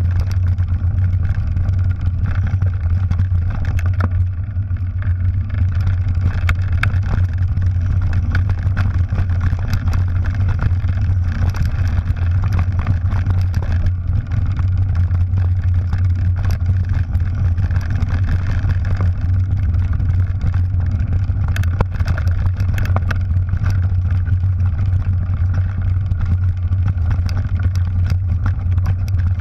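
Mountain bike descending a rocky trail, heard through a bike-mounted camera: a steady low rumble of wind and vibration with constant rattling and clicks as the tyres and frame go over stones.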